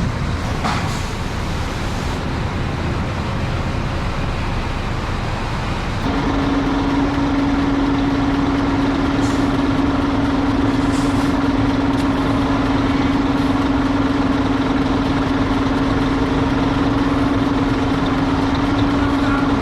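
Machinery running with a steady low rumble. About six seconds in, a steady hum starts suddenly and holds, like a motor switching on.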